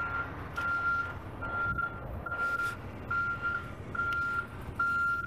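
Truck's reversing alarm beeping as it backs up: a steady single-pitched beep repeating a little more than once a second, about seven beeps in all.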